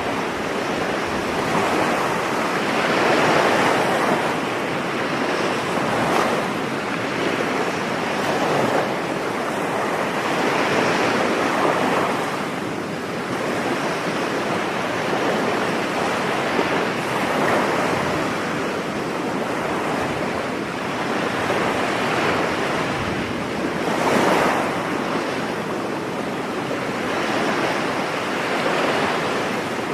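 Ocean waves breaking on a beach, a continuous wash of surf that swells and eases every few seconds, with a few louder breakers.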